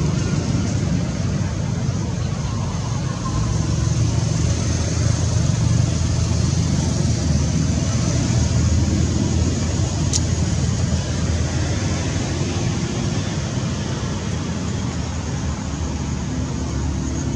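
Steady outdoor background rumble, strongest in the low range, with a steady high hiss over it and a single sharp click about ten seconds in.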